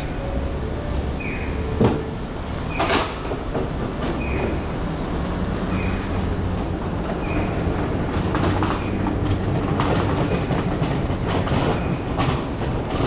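Street tram running on its rails, wheels clattering over rail joints, the clacks coming thicker in the second half. Two sharp knocks come about two and three seconds in, and a short falling electronic chirp repeats about every second and a half through the first half.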